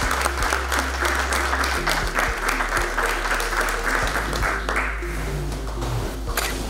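Audience applauding, dying down about five seconds in.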